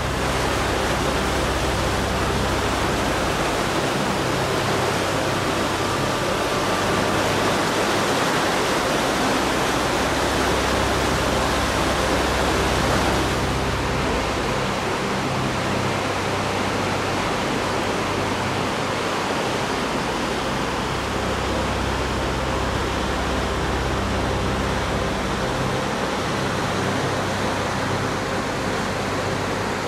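Steady rushing of fast-flowing mountain water, a waterfall or whitewater creek in a rocky gorge, with faint low tones swelling and fading underneath.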